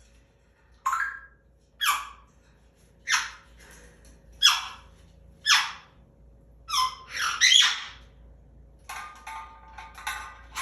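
African grey parrot giving loud, harsh screeches about once a second, the 'bad noise' it is being scolded for. Near the end it switches to a softer pitched whistling call.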